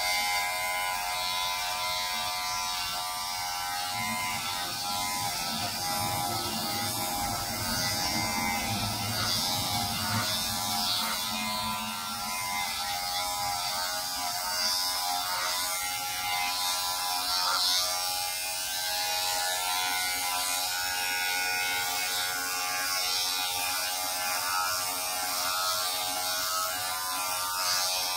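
Corded electric hair clippers buzzing steadily as they are run over a man's scalp, shaving his head.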